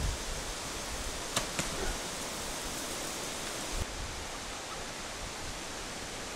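A compound or recurve bow being shot: two sharp snaps about a fifth of a second apart, heard over a steady outdoor hiss.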